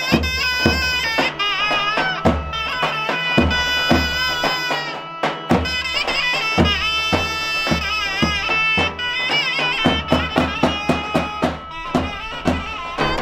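Traditional folk music: an ornamented wind-instrument melody over a steady drone, with drum beats that grow busier near the end.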